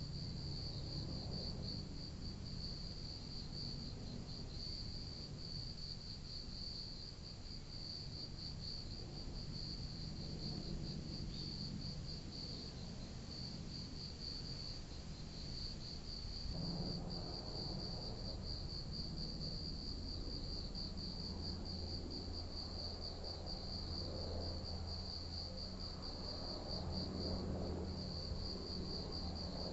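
Insects trilling steadily and high, over the faint low hum of a distant helicopter that grows louder about halfway through.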